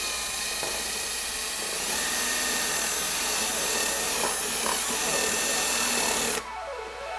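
Craftsman cordless drill running steadily as it drills through the diffuser base plate's mounting holes. It gets louder about two seconds in and stops a little before the end.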